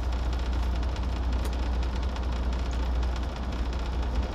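Truck's diesel engine idling: a steady low rumble heard from inside the cab.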